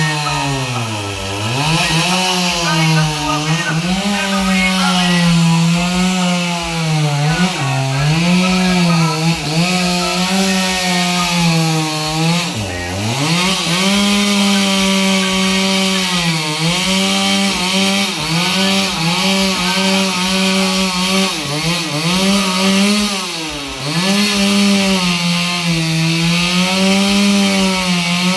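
Chainsaw running and cutting wood, its engine note sagging under load and picking back up again and again, with two deep drops, one about halfway through and one near the end.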